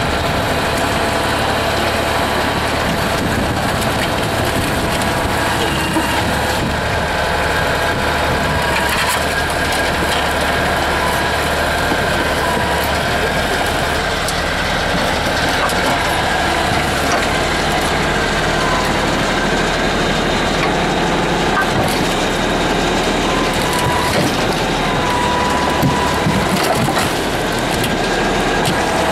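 Atlas 1300 excavator's air-cooled three-cylinder Deutz diesel running steadily under load while the arm crushes and folds a car body, with scattered crunches of bending sheet metal.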